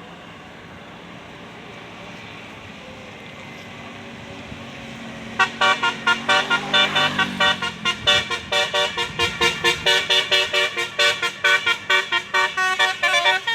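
Steady road traffic noise, then about five seconds in a tour bus's Basuri telolet multi-tone horn starts up suddenly, playing a rapid tune of short notes, several a second, that carries on loudly.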